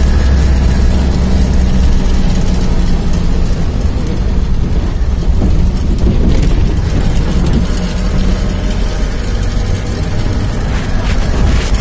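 A vehicle's engine running steadily with road noise, heard from inside the cab while driving along a dirt road.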